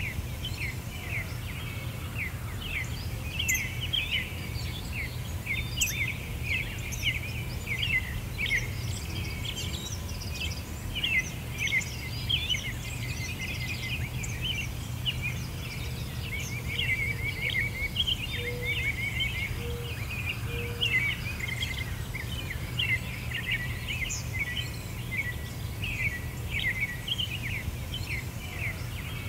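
Many small birds chirping and twittering in quick, overlapping calls over a steady low rumble.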